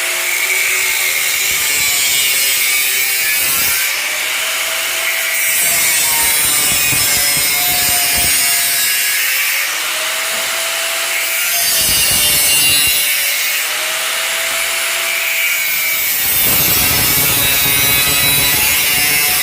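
Electric power tool cutting a steel tube, running loud and continuously, with its motor note sagging and recovering several times as the cut loads it.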